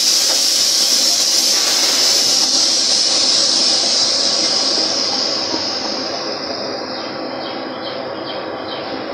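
Drilling rig floor machinery running with a loud, steady hiss that slowly fades over several seconds, heard while drill collars are pulled out of the hole.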